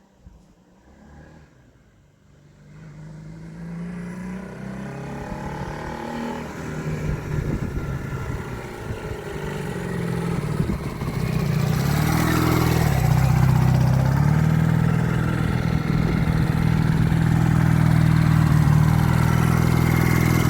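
Honda CD175's small twin-cylinder four-stroke engine being ridden: faint at first, it grows steadily louder as the bike comes closer over about ten seconds, then runs loud and close, its pitch shifting with the throttle.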